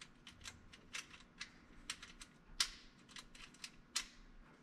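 Hose clamp on a trim tab actuator's rubber boot being loosened with a screwdriver: a run of short, sharp clicks at uneven spacing, with a louder click about halfway through and another near the end.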